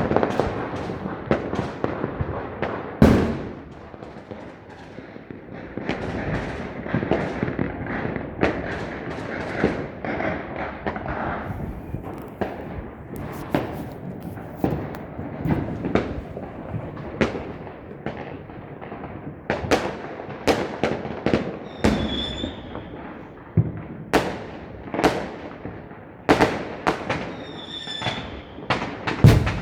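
Fireworks going off in a dense, continuous barrage: many sharp bangs over steady crackling, with a loud bang about three seconds in and another near the end. Two short whistles sound around the last third.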